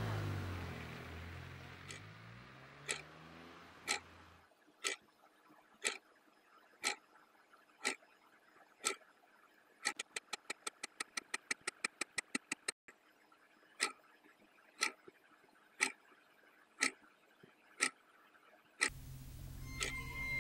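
Clock ticking about once a second, breaking into a fast run of ticks for a couple of seconds midway before returning to the slow beat. A low drone fades out over the first few seconds, and a low hum comes in near the end.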